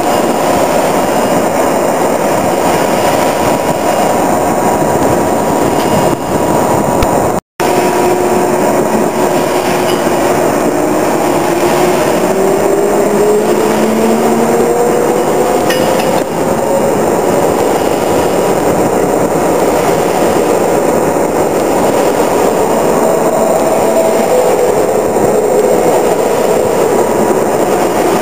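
Drilling rig machinery running loudly as heard up in the derrick: a steady mechanical din, with a tone that slowly rises in pitch over several seconds after a brief cut about a third of the way in.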